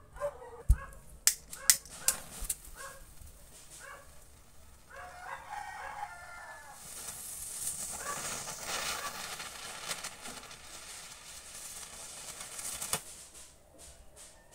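A homemade mini whistle rocket, held down under a claw hammer, burns with a rough hiss of sparks for several seconds, with no whistle tone. Several sharp cracks come in the first few seconds, and a rooster crows in the background.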